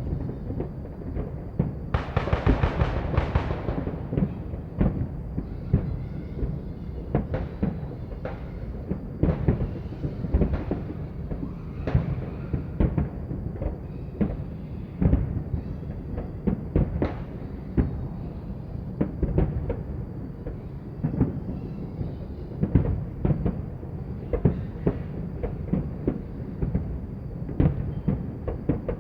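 Fireworks going off without pause: many overlapping bangs and deep booms, with a dense burst of crackling about two to four seconds in.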